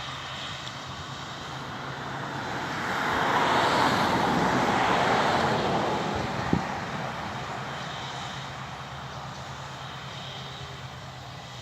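Claas Lexion combine harvester at work in the crop, passing close by: its engine and threshing noise swell over a couple of seconds, peak about four to five seconds in, then fade away, over a steady low hum.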